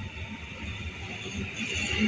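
Electric multiple unit train approaching on the tracks: its rumble and the hiss of wheels on rail grow steadily louder as it nears.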